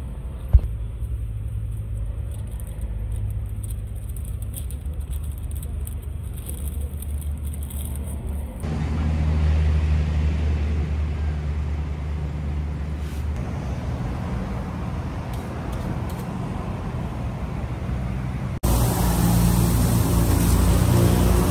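Low, steady rumble of road traffic, with a single sharp click about half a second in; the sound grows louder in two abrupt steps, about a third of the way in and near the end.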